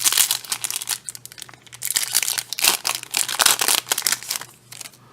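Foil wrapper of a Yu-Gi-Oh! trading card booster pack crinkling as it is torn open by hand, in two spells: about the first second, then from about two to four seconds in.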